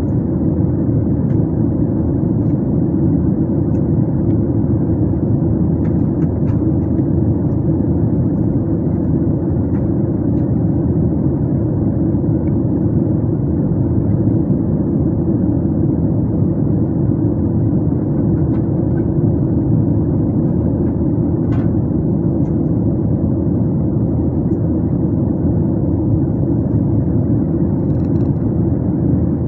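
Jet airliner cabin noise in cruise: a loud, steady low drone of engines and rushing air, heard from inside the cabin at a window seat over the wing.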